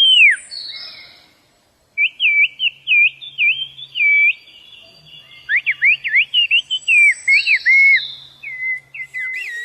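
Whistled Turkish, the so-called bird language: a person whistling speech as quick rising and falling pitch glides. One whistle opens, then after a short silent break a loud, fast run of whistled syllables follows.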